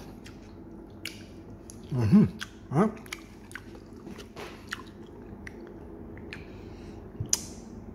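A person chewing a mouthful of fried eggplant dipped in vinegar, with many small wet clicks of the mouth and jaw. There are a couple of short voiced sounds about two and three seconds in.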